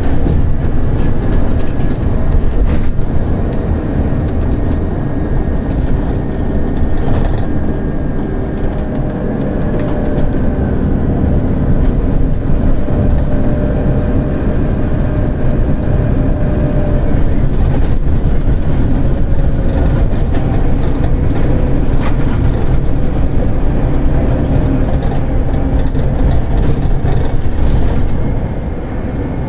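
Scania K280UD double-decker bus's Scania DC9 diesel engine pulling hard under full throttle, as on an uphill climb, a loud, steady rumble heard from inside the passenger cabin. The sound drops noticeably near the end.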